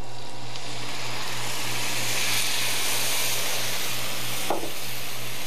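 White wine poured into a hot copper sauté pan of shallots in butter, sizzling and hissing as it hits the pan and steams, over a steady low hum. A short light knock comes about four and a half seconds in.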